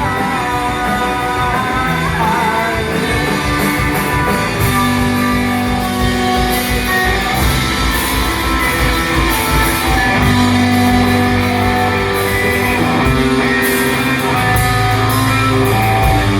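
Rock band playing loud, with electric guitar, bass and drums.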